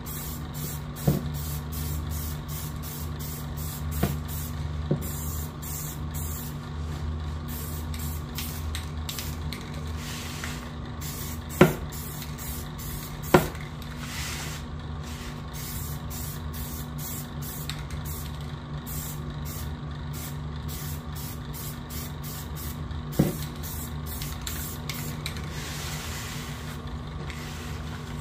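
Aerosol can of clear varnish being sprayed in many short hissing bursts over a wooden piece, with a few sharp knocks in between, the two loudest about twelve and thirteen seconds in, over a steady low hum.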